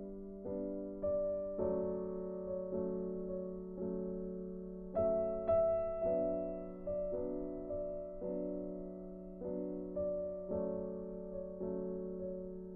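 Gentle background piano music: soft sustained chords struck about once or twice a second, each fading away.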